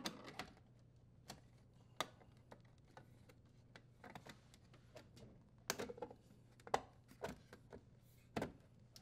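Faint, irregular clicks and light knocks of a dishwasher's sheet-metal control board support panel and its wiring being handled and pushed back into place under the door.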